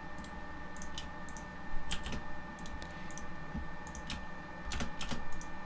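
Computer keyboard keys and mouse buttons clicking lightly at irregular intervals, a few clicks each second, over a faint steady hum.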